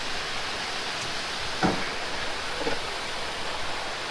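Steady rush of flowing water, with a single short knock about one and a half seconds in and a fainter brief knock about a second later.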